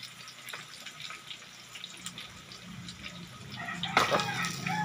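Liquid dripping and crackling in scattered small pops as cooked pork is lifted out of the cooking pot. A knock and a chicken clucking come in near the end.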